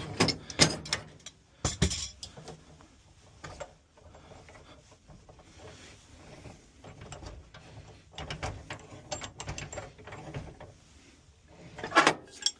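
Metal wrenches clicking and scraping on a gas valve's pipe fitting as it is loosened. Sharp clicks come in the first two seconds and again near the end, with quieter fiddling between.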